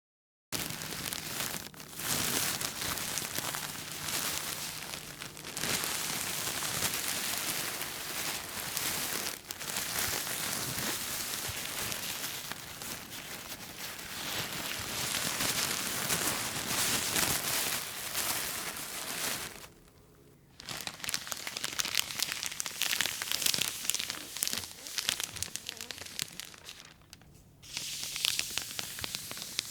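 Plastic sheeting being crumpled and crinkled by hand: a dense crackling that runs with short breaks, the longest a pause of about a second some twenty seconds in. After that pause the crackles come sharper and more separate.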